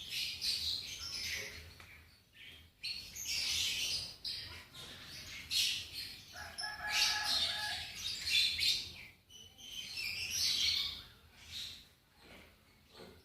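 Lovebirds chirping in repeated high-pitched bursts, with a lower call about halfway through.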